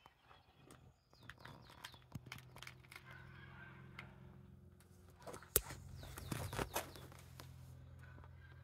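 Faint ambient sound: scattered clicks and knocks, with a louder cluster a little past the middle, over a steady low hum that sets in about a second in. There are occasional bird chirps.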